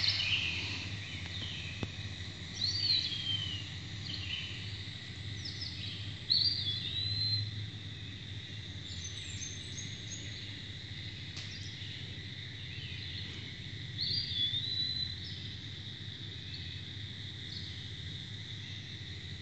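Faint chirping calls, a few short rising-and-falling whistles spaced several seconds apart, over a steady high-pitched hum.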